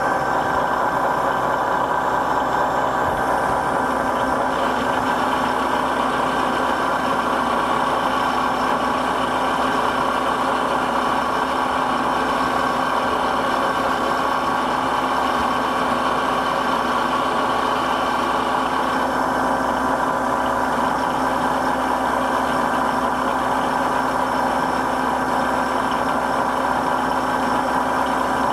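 Vertical milling machine running, its end mill taking a facing cut across a metal part as the table is fed front to back (conventional milling): a steady machine hum and whine, with a lower tone joining about four seconds in.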